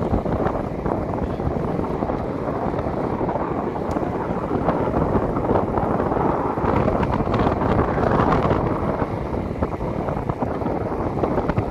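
Steady wind rush buffeting the microphone of a camera riding along on a moving bicycle, a dense low roar that drowns out most other sound.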